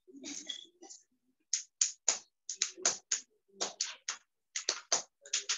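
Typing on a computer keyboard: irregular sharp key clicks, a few a second, starting about a second and a half in after a short muffled rustle.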